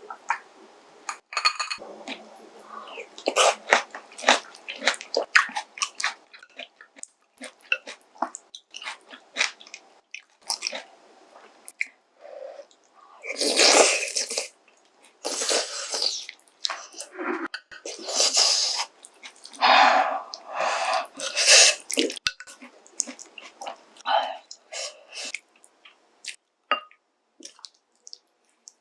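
Close-miked eating: wet chewing and biting with many small clicks, and several louder noisy bursts of about a second each in the middle of the stretch.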